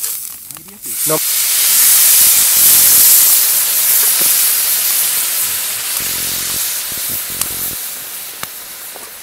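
Liquid hitting a hot pan of frying food: a sudden loud hiss of steam and sizzle about a second in that slowly dies down.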